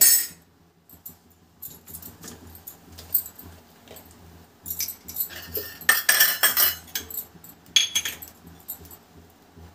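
A steel spoon set down with a clink beside a non-stick appe pan on a gas stove, then a few more short metallic clinks and jingles of kitchen utensils, the loudest cluster about six seconds in.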